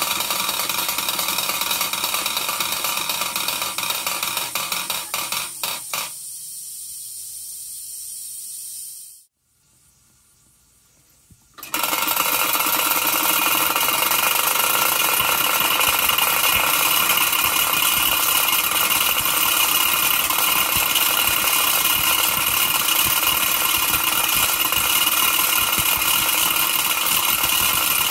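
Wilesco D6 toy steam engine running with a steady mechanical rattle, together with the belt-driven Forge Shop M61 model. About five seconds in, the beats grow distinct and the sound falls away to near silence. It cuts back in suddenly a few seconds later and runs steadily, with a high steady whine over the clatter.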